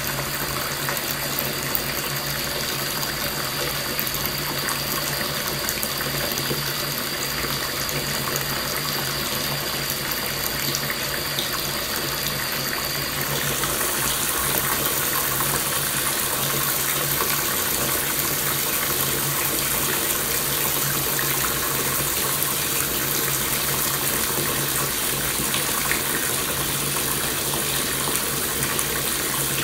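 Bathtub filling from the tap, water running steadily into the tub. About thirteen seconds in, the sound turns slightly brighter and hissier.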